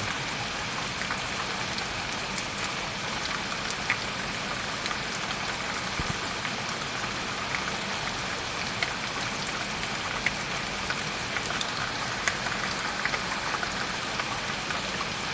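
Steady rain falling, with scattered individual drops tapping sharply against nearby surfaces.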